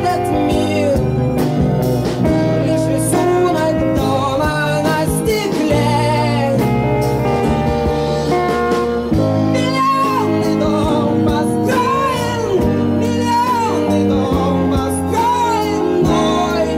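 Rock band playing a song, recorded onto reel-to-reel tape in 1984: electric guitars, bass guitar and drums, with a wavering melodic line carried above the band.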